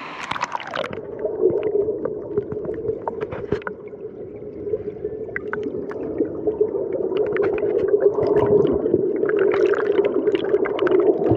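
Flowing stream water heard from under the surface after a splash in the first second: a muffled, steady rushing, with bubbles popping and crackling throughout.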